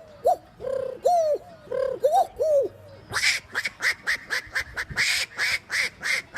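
A man vocally imitating animal calls: a string of short pigeon-like coos, then from about three seconds in a fast run of harsh quack-like calls, about four a second.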